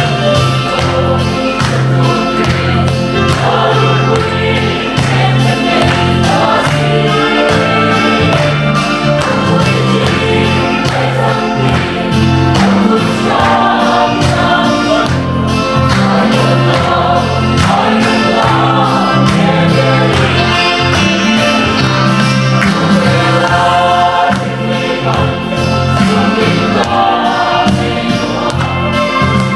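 Mixed choir of men and women singing a gospel song in harmony.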